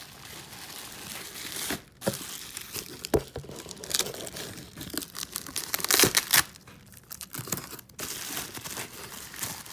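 Plastic packaging being torn open and crinkled by hand, irregular rustling and crackling with a louder tearing rush about six seconds in.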